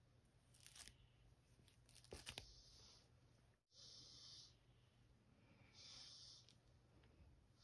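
Faint scratching of a fine-tooth metal comb raking through short coily hair over a flaky, dandruff-covered scalp: short hissy scrapes about every one and a half to two seconds, with a few light clicks around two seconds in.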